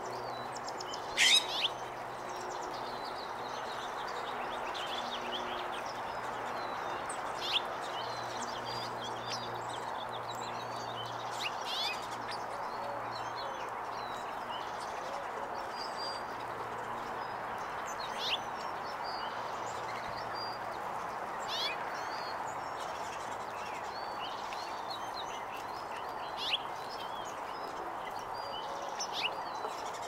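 Small songbirds giving short, sharp, high chirps every few seconds, the loudest about a second in, over a steady background noise with a faint low hum coming and going.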